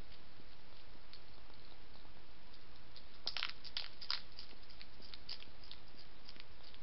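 Wild hedgehog chewing and crunching food at a feeding dish: scattered small sharp crunches, with a burst of louder crunches about halfway through, over a steady background hiss.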